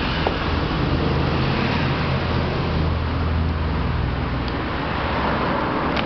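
A steady low machine hum with an even rushing noise over it, with a light click about a quarter of a second in.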